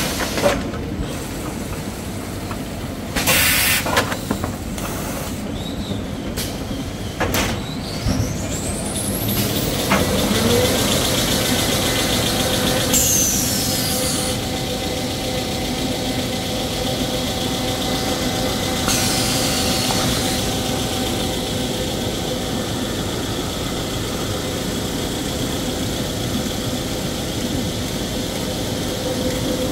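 Tissue-paper maxi-roll embossing and rewinding line running, a steady machinery drone with a few short bursts of compressed-air hiss. About nine seconds in a rising whine sounds, and then a steady hum holds.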